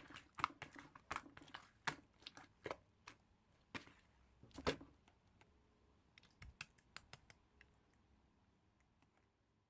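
Irregular sharp clicks and crackles, several a second at first, thinning out after the middle and dying away near the end.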